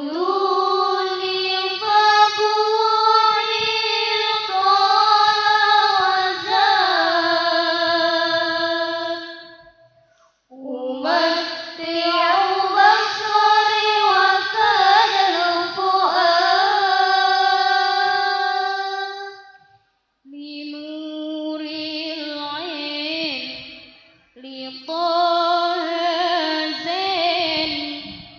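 Young female voices singing a slow melody in unison, in long held phrases whose pitch turns and wavers: two phrases of about ten seconds, then two shorter ones, each followed by a brief pause.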